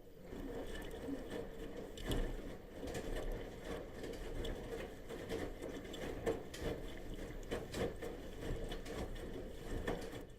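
Bosch washing machine in its wash cycle: the motor hums as the drum turns, with laundry and water churning and small knocks and clicks, then it stops near the end, a pause in the wash rhythm.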